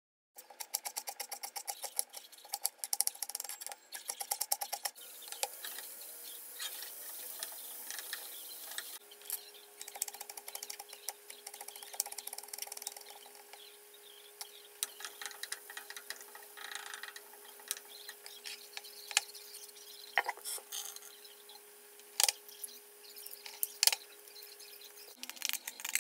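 Kitchen prep sounds: a rapid run of knife taps on a wooden chopping board for the first few seconds, then a steady faint hum and hiss broken by a few sharp knocks of utensils.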